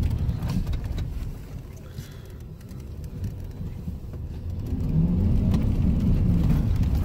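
GMC pickup truck's engine and drivetrain rumbling under throttle, heard inside the cab. The level drops for a few seconds in the middle, then the engine revs up again about five seconds in.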